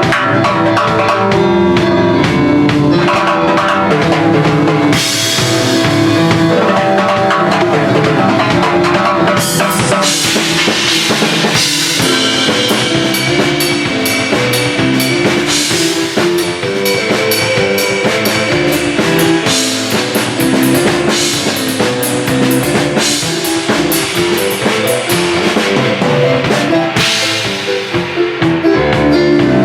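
Live drum kit playing a groove with snare, bass drum and rimshots, with repeated crash and ride cymbal washes starting about five seconds in, over a melodic accompaniment of changing pitched notes. The drums sit back in the mix, too background-ish.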